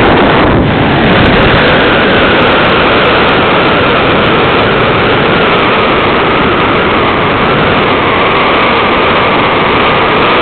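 Loud, steady rush of air in flight, with a faint whistling tone running through it.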